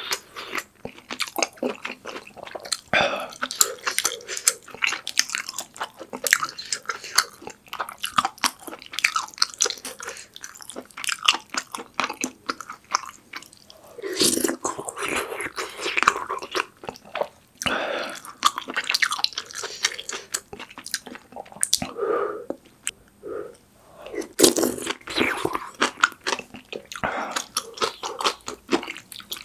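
Close-miked chewing and biting of pork kimchi stew with ramen noodles and rice: continuous irregular mouth clicks and smacks.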